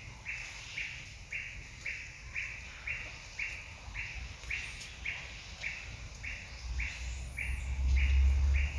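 A bird repeating one short, high call evenly about twice a second. A low rumble swells up near the end.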